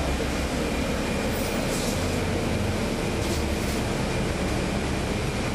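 Interior sound aboard a NABI 40-SFW transit bus: its Cummins ISL9 inline-six diesel running with a steady low hum and broad rumble, and a faint steady high whine above it.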